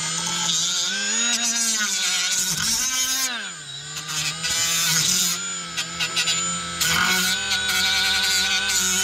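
Cordless rotary tool spinning a small wheel against the car's rusty underbody, grinding off rust and old undercoat. Its high whine dips and rises again and again as it is pressed on and eased off, with a scratchy grinding hiss on top.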